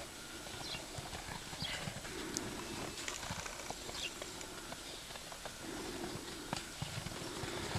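American Paint Horse gelding walking on snow-covered ground under a rider, its hooves giving soft, scattered hoofbeats.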